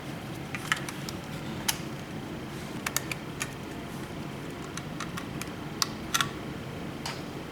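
A screwdriver backing two small screws out of a Lutron Caseta in-wall dimmer switch: scattered sharp clicks and ticks of metal on plastic, about a dozen across the stretch, over a steady low hum.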